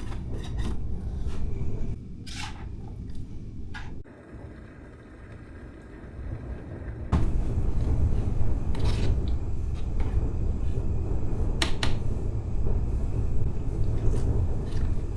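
Low rumble of gale-force wind buffeting the hut, with scattered clicks and knocks of cooking pots and utensils being handled. The rumble drops away sharply about four seconds in and comes back just as suddenly about seven seconds in.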